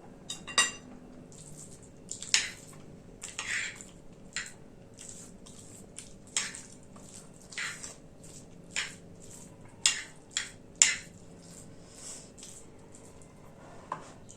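Close-up eating sounds: short, irregular clinks and scrapes on a plate, about one a second, with a ringing clink near the start.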